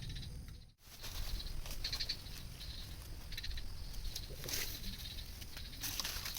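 Outdoor rural ambience: frogs calling in short repeated high trills over a steady low rumble. The sound drops out completely for an instant just under a second in.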